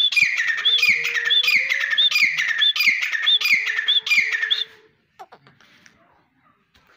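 Grey francolin (teetar) calling: a loud run of about seven harsh, repeated notes, roughly one and a half a second, that stops short a little before five seconds in.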